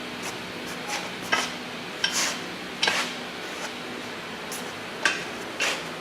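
Irregular metal clinks and clanks of steel tools, bolts and brackets being handled, about ten over a few seconds, one ringing briefly, over a steady low shop hum.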